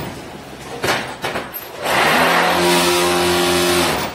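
An automatic concrete brick-making machine cycling. A motor's steady hum cuts off at the start, a few metal clanks follow, then the hum starts again about two seconds in, with a hiss over it, and stops near the end.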